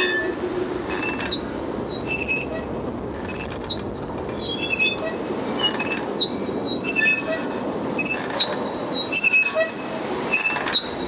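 Horror film trailer sound design: a steady rushing drone with irregular sharp metallic clicks and clinks scattered through it.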